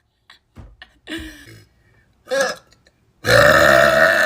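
A young woman burping: a shorter burp about a second in, a brief one just after two seconds, then a long, loud burp from about three seconds in.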